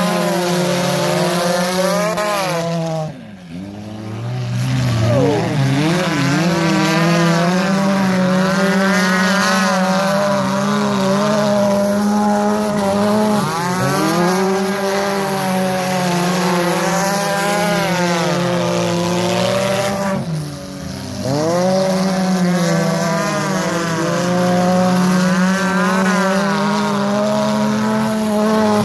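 Engines of several bump and run cars revving and easing off as they race round a dirt track, their pitches rising and falling over one another above a steady low drone. The sound drops briefly twice, about 3 seconds and 20 seconds in.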